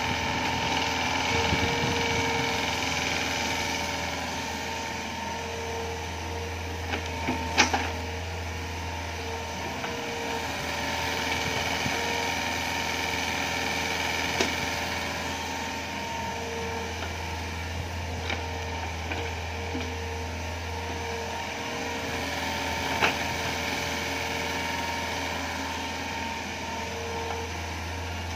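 Hitachi Zaxis 48U mini excavator working, its four-cylinder Yanmar 4TNV88 diesel running steadily under hydraulic load as the arm digs, with a faint on-and-off whine. A few sharp knocks come through, the loudest about a quarter of the way in.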